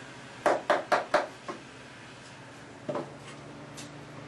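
A quick run of four sharp knocks, then a weaker one, and a single knock near the end: a hand tool striking the sound-deadening material on the car's steel floor pan as it is chipped off. A steady low hum runs underneath.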